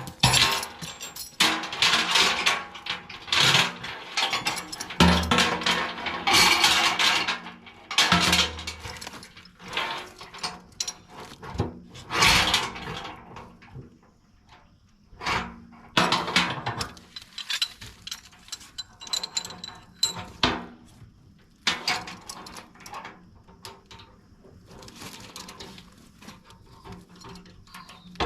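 Metal tow chain rattling and clanking in irregular bursts as it is handled and hooked up, with a quieter lull partway through.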